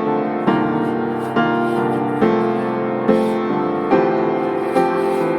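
Background music: soft piano chords, a new chord struck about every second.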